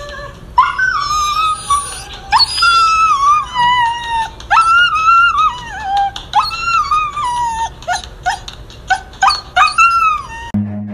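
Husky whining and howling in a run of long cries that each start high and slide down, breaking into shorter, quicker yelps near the end.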